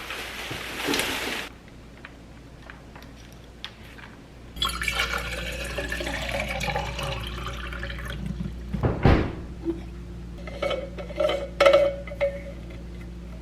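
Water running into a kitchen sink, starting about a third of the way in and going on steadily, with a few sharp knocks and clicks near the end.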